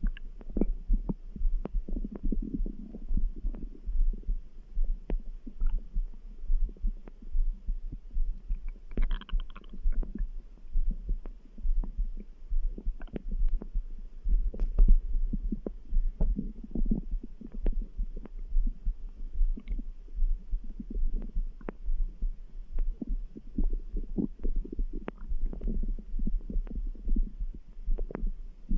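A human stomach gurgling and grumbling, with many small sharp pops, over a low thudding heartbeat. A short higher-pitched gurgle comes about nine seconds in.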